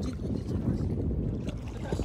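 Kayak out on the water: a low, unsteady rumble of wind on the microphone over water noise, with a light splash about a second and a half in.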